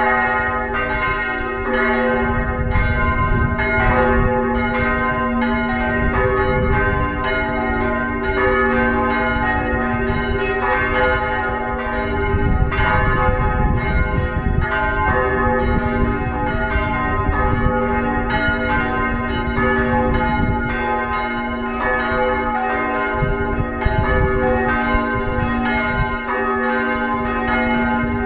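Full peal of the church's four swinging bells, their strikes overlapping in a continuous ringing clangour.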